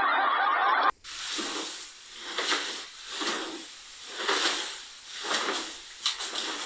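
A large cloth sheet being swung up and down, whooshing in rhythmic swells about once a second. Before that, a loud steady hiss cuts off sharply about a second in.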